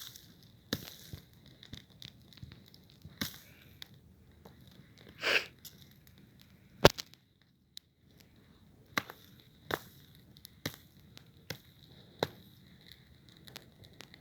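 Campfire crackling, with irregular sharp pops and snaps of burning wood. There is a short hiss just past five seconds in and the loudest snap about two seconds later.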